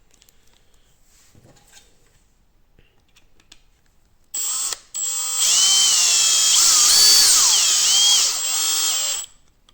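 Power drill used as a screwdriver driving a screw into a 3D-printed plastic part: a short spurt about four seconds in, then about four seconds of running, its motor pitch dipping and rising as the screw tightens. Faint handling clicks come before it.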